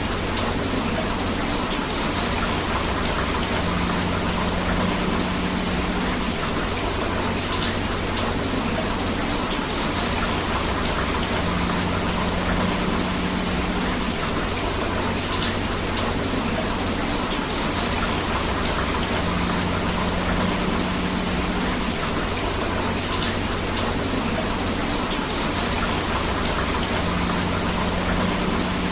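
Steady rain falling together with rushing river water, an even wash of noise. A faint low hum returns for a couple of seconds about every eight seconds.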